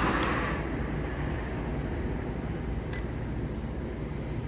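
A single short electronic beep from the Syma TF-100 helicopter's remote control about three seconds in, while the remote and helicopter are being synced before flight, over a steady low rumble of background noise.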